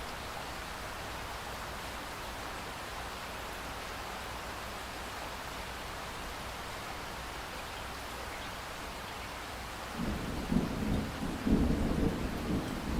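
Steady rain falling, with a roll of thunder starting about ten seconds in: a low, uneven rumble that swells louder than the rain.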